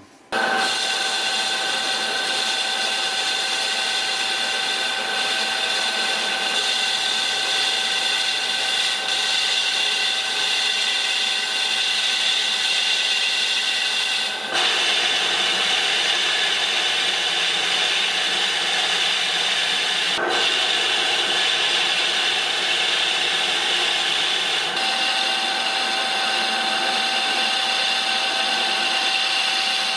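Chinese mill-lathe combination machine running under power, turning down the outer diameter of a lathe-chuck back plate: a steady whine of several tones that changes abruptly in pitch about halfway through and again a few seconds later.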